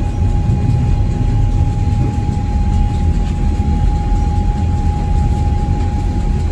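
Sugar beet piling machinery running steadily: a heavy, even low rumble of engine and conveyors, with a constant high whine on top.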